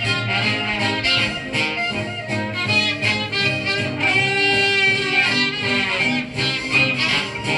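Recorded music with string instruments playing continuously, heard as a disc plays back.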